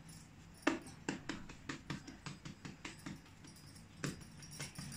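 Fingertips patting and pressing a ball of bread dough flat on a floured marble countertop: a run of soft quick taps, about three or four a second.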